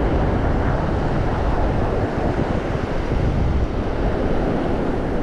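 Wind buffeting the microphone over the steady wash of surf across a shallow reef.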